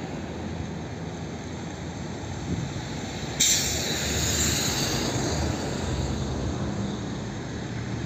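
Boeing 787 jet engines running at low thrust as the airliner taxis, a steady rumble. About three and a half seconds in, a sudden hiss joins and fades over the next two seconds.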